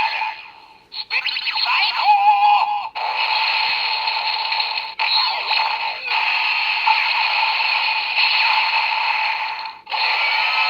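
DX Kamen Rider Wizard toy belt playing the electronic sound effects for the Flame Dragon special ring: a short announcement voice, then long stretches of noisy fire-and-dragon effects with brief breaks about five and ten seconds in.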